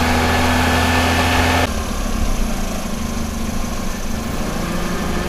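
Car engine idling steadily, heard near its exhaust pipe during a roadside exhaust-noise measurement. About a second and a half in, the sound cuts abruptly to a quieter, lower engine hum.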